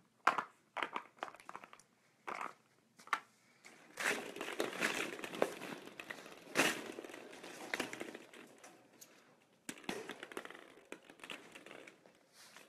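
Hollow plastic ball-pit balls crinkling and clicking as a terrier puppy mouths them and knocks them about on a hardwood floor. Scattered clicks at first, then a few seconds of denser crinkling and clatter, then scattered clicks again.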